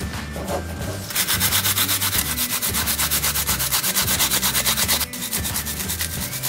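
Onion being grated on a plastic grater: quick rhythmic rasping strokes, several a second, starting about a second in and easing off a little about five seconds in.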